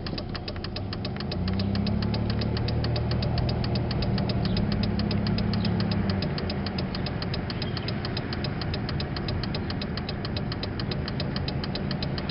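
A car engine running, heard from inside the cabin while driving slowly. It gets louder for a few seconds early on, then settles back, with a fast, even ticking throughout.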